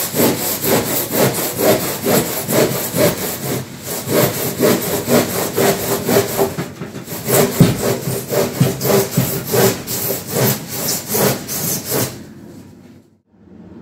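Hand saw cutting through a 120 mm rigid insulation board in quick back-and-forth strokes, about three a second. There is a brief pause partway through, and the sawing stops near the end.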